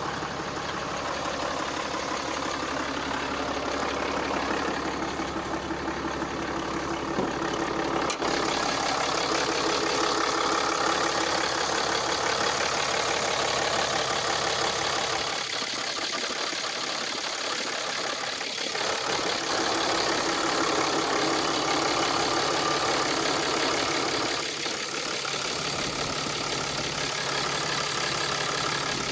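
Ram 2500's 6.7-litre Cummins inline-six turbo diesel idling steadily, heard with the hood up. The sound turns brighter about eight seconds in.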